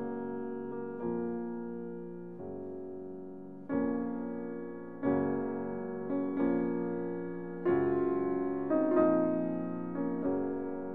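Background piano music: notes and chords struck every second or so and left to ring away.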